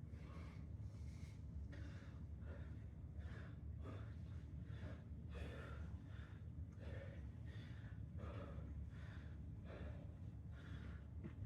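A person breathing hard and rhythmically through an exercise interval, a quick breath every half second to a second, over a low steady room hum.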